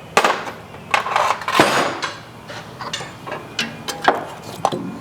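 Metal clanking and knocking of hand tools and drivetrain parts while the rear differential is worked loose, with a sharp knock about a second and a half in and lighter clicks near the end.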